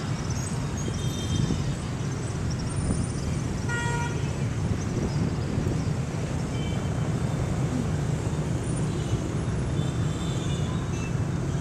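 Steady street traffic, mostly motorbikes running past with a constant low engine rumble. Several short horn toots cut through, the clearest about four seconds in.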